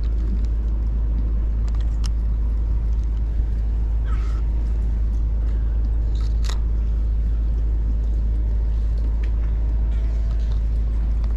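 Steady low rumble, with a few light clicks and taps from handling a spinning reel and rod.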